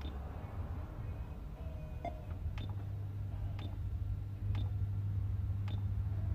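Buttons clicking on an aftermarket Sony mechless car head unit as it is operated, about six presses roughly a second apart, with a short beep. A low steady hum under it gets louder about halfway through.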